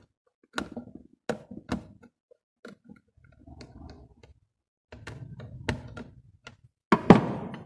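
Small screwdriver clicking and tapping at a circuit board in a plastic housing: a string of separate sharp ticks, then scraping handling noise. A louder knock and scrape about seven seconds in.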